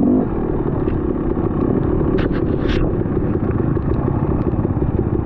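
Dual-sport motorcycle running under way, a steady engine rumble mixed with wind noise. A few short scraping sounds come about two seconds in.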